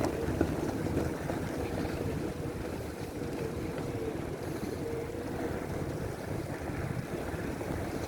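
Steady rushing noise of wind on the microphone while riding a bicycle through snow, with a faint high whine that comes and goes.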